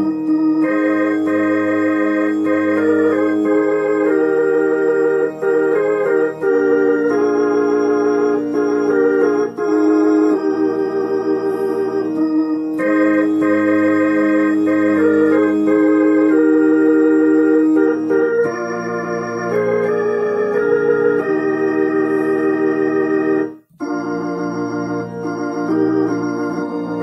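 Roland HP 704 digital piano playing a gospel hymn on an organ voice: slow chords held at a steady level without dying away. It breaks off for a moment near the end, then the chords start again.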